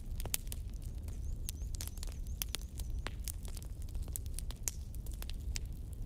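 Wood bonfire crackling: irregular sharp pops and snaps, several a second, over a steady low rumble.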